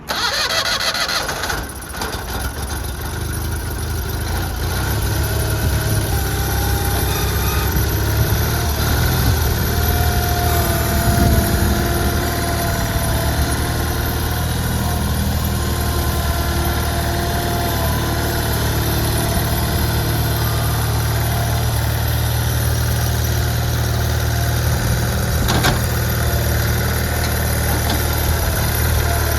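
Steiner 430 Max mower tractor's engine running steadily at idle, coming up just after the start.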